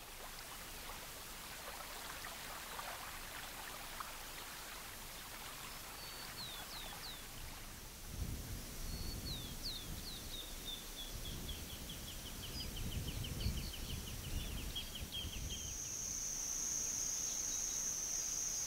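Outdoor marsh ambience of small birds calling: short falling chirps, then a rapid trill in the middle. A low rumble runs through the middle stretch, and a steady high insect buzz sets in near the end.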